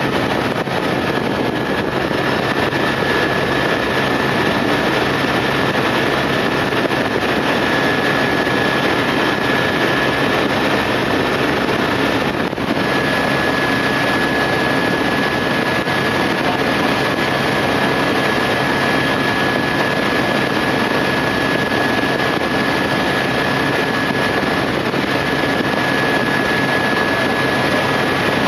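Steady engine and rotor noise heard inside a small helicopter's cabin in flight, with a steady high whine on top that drops out for a moment about twelve seconds in.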